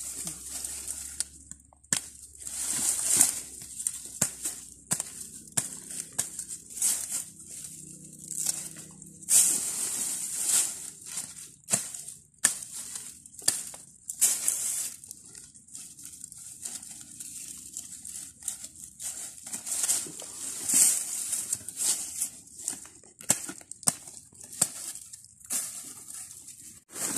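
Dry grass and leaves rustling and crackling in uneven spells, with scattered snaps and scrapes, as hands handle and break apart a bunch of green saba bananas on the ground.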